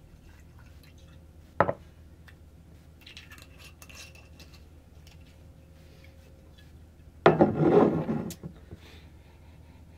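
Glass rum bottle and tumbler being handled: a sharp clink about one and a half seconds in as the pour ends, faint clicking of the bottle's screw cap a few seconds later, and a louder knock and scrape near the end as the bottle is put down on the wooden table.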